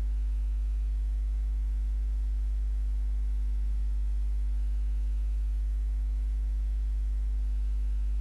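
Steady electrical mains hum: a constant low buzz at about 50 Hz with its overtones, picked up by the recording microphone.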